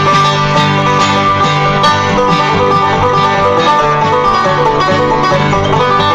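Background music of plucked acoustic string instruments in a bluegrass style, playing steadily with quick notes.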